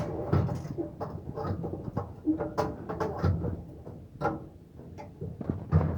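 Irregular knocks and clatter of a removable dishwasher part being fitted back into place by hand, with the sharpest knock near the end.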